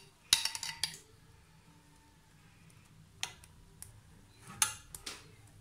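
Metal spoon clinking and scraping against a glass bowl and a non-stick frying pan as egg mixture is spooned out and spread: a quick run of clicks in the first second, then a few separate taps later on.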